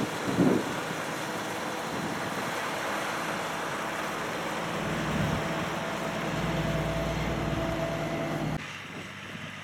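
Diesel engine of a semi-truck running steadily as it drives slowly past pulling a loaded container trailer, with a deeper rumble swelling in the second half. There is a brief thump about half a second in, and the sound drops off abruptly near the end.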